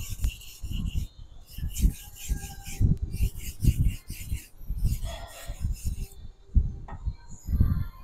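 Nakiri knife edge rubbed across a whetstone in a series of short strokes with brief pauses between them: the final pass at a raised angle that removes the burr from the edge.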